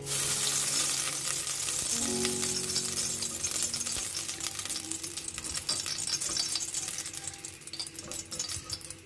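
Ghee sizzling in a hot metal pot as it is spread around the bottom and sides with a silicone spatula, with light scraping from the spatula. The sizzle starts suddenly and dies down gradually over several seconds.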